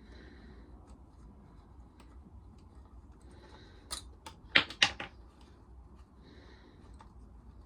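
Hand tools working on a small lawnmower engine: light scattered clicking, then a few sharp metallic clacks about four to five seconds in, the loudest two close together.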